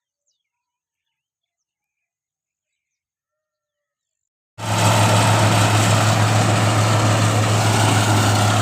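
Near silence, then about halfway through a Kubota combine harvester's diesel engine cuts in suddenly at full level, running steadily with a strong low hum.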